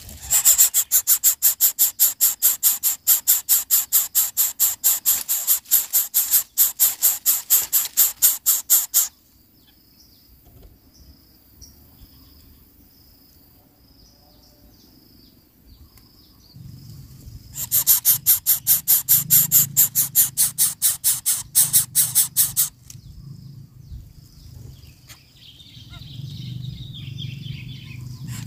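Coucal nestling's begging calls: loud, rapid rasping pulses, about four a second, in two long runs. The first run stops about nine seconds in and the second comes near the end.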